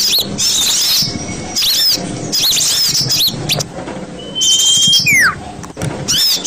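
Small-bird lure recording: rapid high chirps and twitters repeating in short, abruptly cut blocks, with a long steady high whistle and then a falling whistle about five seconds in.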